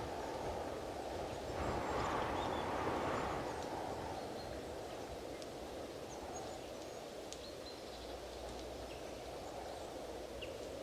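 Strong wind blowing in gusts, swelling about two seconds in and then easing to a steadier rush. A few faint high chirps sound over it.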